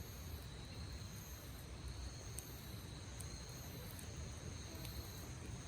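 Crickets or similar insects trilling steadily in several high-pitched tones, one of them pulsing on and off, with a few faint crackles from a wood campfire.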